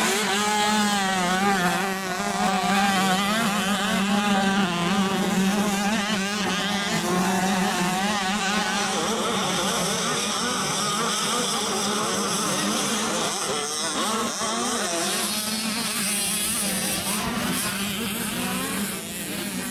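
Small 65cc two-stroke motocross bike engines racing, their pitch rising and falling as the riders throttle on and off, with a steady hum underneath.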